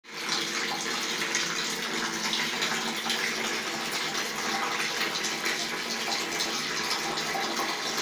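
Water running steadily from the outlet spout of a switched-on instant electric water heater, falling in a thin stream.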